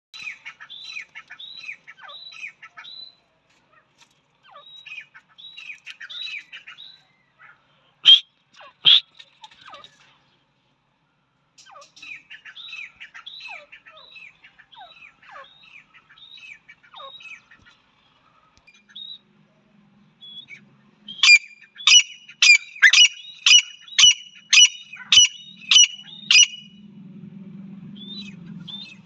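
Female francolins (teetar) calling: a long run of quick, soft chirps, then, a little over 20 s in, about eleven loud, evenly spaced calls, roughly two a second. A faint low hum lies under the later calls.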